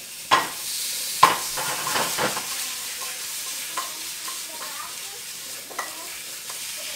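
Sausages sizzling in a frying pan, with a scattering of sharp knocks and scrapes of a utensil against the pan as they are turned. The loudest knock comes about a second in.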